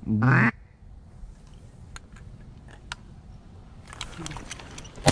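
One loud, short duck quack at the start. Then a quiet stretch with a few faint ticks, and a single shotgun shot right at the end.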